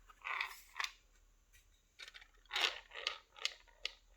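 Light clicks and scrapes of small lock parts and pins being handled: a short scraping rustle in the first half-second, then a string of sharp little clicks and scrapes through the second half.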